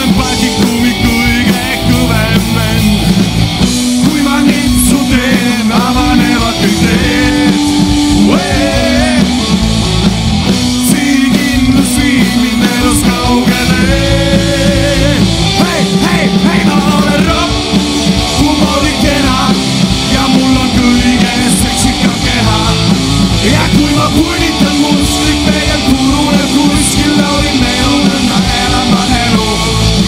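Live rock band playing loudly: electric guitars and a drum kit, with a male lead singer.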